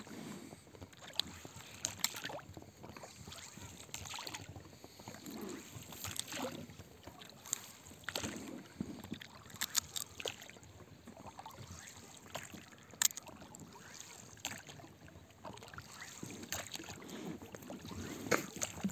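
Oars of an inflatable rowing boat working the water: blades dipping and dripping, with scattered sharp clicks and knocks.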